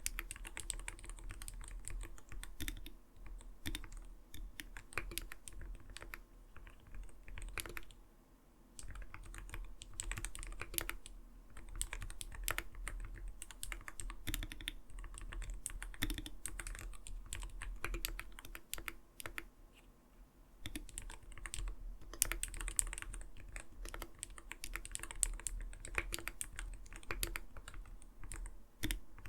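Continuous typing on an Arbiter Studio Polar 65 mechanical gaming keyboard, a fast irregular stream of keystrokes with a soft, not-too-light clacking ('kotokoto') sound, pausing briefly twice.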